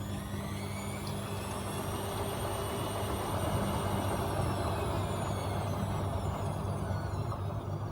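AEG Öko-Lavamat 74780 washing machine turning its drum: the motor's whine rises and then falls back over several seconds, over a steady low hum and a rushing noise that swells with the motor.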